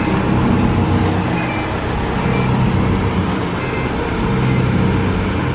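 Ice cream van's engine running steadily at idle: a constant low hum.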